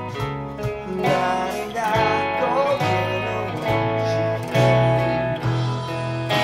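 Fender Stratocaster electric guitar strummed in a driving chord rhythm, played along with a recorded band track of the song that carries a bass line and a sung melody.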